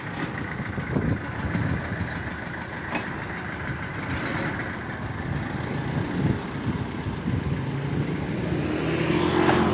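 Medium cargo truck's engine running at low speed while the truck manoeuvres, a steady rumble that grows louder near the end.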